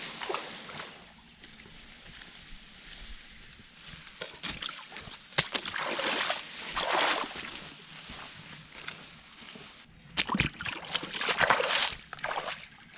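Rustling and crackling of cut leafy tree branches being picked up and carried, with footsteps on wet ground, in two main bursts a few seconds apart.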